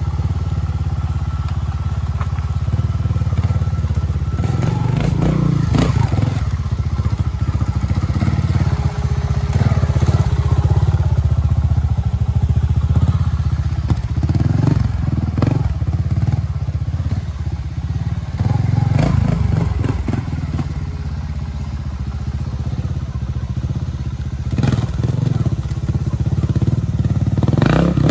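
Trials motorcycle engine running at low revs, swelling in short bursts of throttle, with knocks and clatter as the tyres hit rocks, a concrete block and wooden steps.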